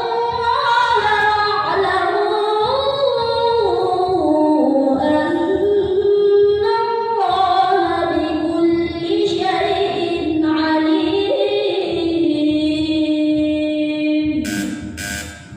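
A woman reciting the Quran in melodic chanted style: one long ornamented phrase on a single breath, the pitch stepping up and down, with a brief hiss near the end as the phrase closes.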